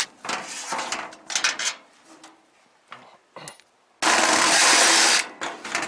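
Loose metal grill parts clattering and knocking, then a loud, even rushing hiss that cuts in suddenly about four seconds in and stops just as suddenly a second later.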